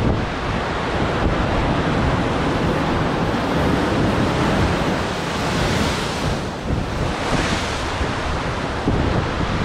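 Ocean surf breaking and washing over sandstone rock ledges, with wind buffeting the microphone; the wash surges twice in the second half.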